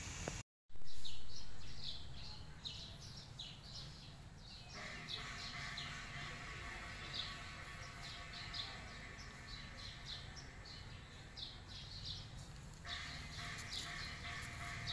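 Small birds chirping in the background, many short, high, falling calls repeated throughout. A steady hum of several even tones comes in about five seconds in, drops out briefly near the end and returns. Just after a short cut near the start there is a brief loud swell that fades over about a second.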